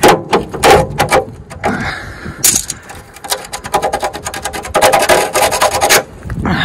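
A steel hammer knocking on a rusty bolt under a Land Rover chassis, four or five sharp blows in the first second. It is followed from a little after 3 s to about 6 s by a fast run of metallic clicking and ringing as the bolt is worked loose.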